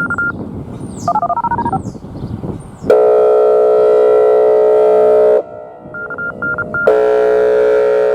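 Whelen 2805 electronic outdoor warning siren sounding its air horn tone: two long, loud, steady blasts of a few seconds each, the first starting about three seconds in, with a short break between them. Before the first blast comes a quick run of touch-tone beeps, and short beeps sound again in the break.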